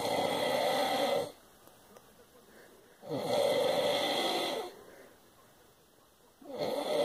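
A man snoring in his sleep: a long snore about every three and a half seconds, three in all, the last starting near the end, with quiet breaths between.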